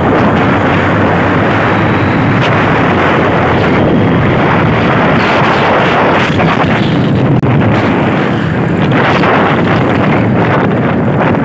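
Loud, steady wind rush buffeting the microphone of a moving vehicle, with the vehicle's running noise underneath.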